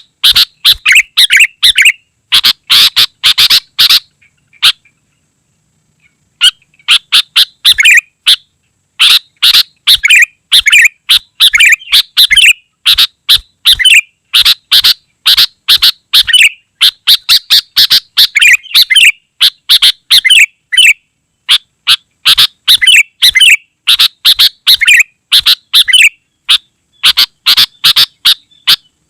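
Sooty-headed bulbul (kutilang) singing in dense, rapid runs of bright chirping notes, very loud, with a silent gap of about two seconds some four seconds in.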